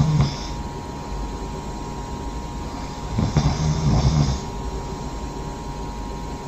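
A sleeping person snoring: the end of one low snore at the very start, then one full low snore about three seconds in, lasting just over a second.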